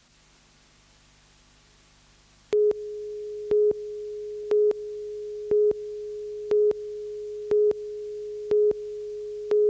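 Countdown leader tone on a broadcast news tape: a steady mid-pitched tone that starts suddenly about two and a half seconds in, with a louder short beep once a second as the numbers count down. Before it, only faint tape hiss and hum.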